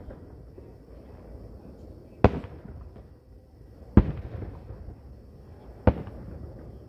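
Aerial firework shells bursting: three sharp bangs about two seconds apart, each followed by a short rumbling echo.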